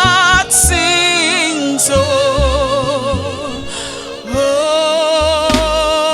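Gospel worship music: a singer holds long, wavering vibrato notes over low bass notes, with a few soft percussion hits.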